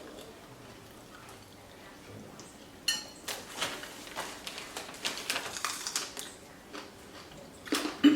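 Tableside handling noises during snack tasting: a sharp clink of cutlery or dishware about three seconds in, then several seconds of irregular crisp crackling, and a short louder sound near the end.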